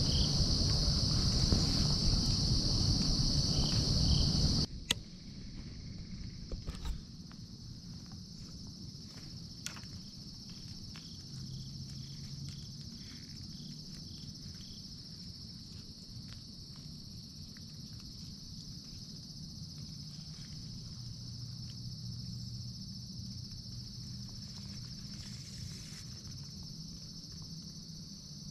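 Steady high-pitched chorus of crickets and other insects, with a low hum of distant highway traffic underneath. About five seconds in, the sound drops suddenly to a quieter level, and a few light clicks follow.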